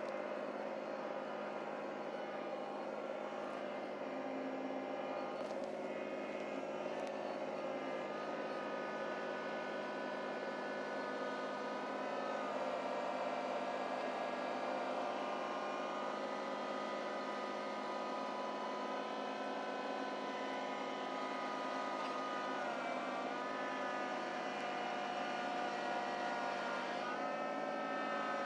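Small tractor engine running steadily under work, its speed picking up about twelve seconds in, sagging briefly near the end and then coming back up.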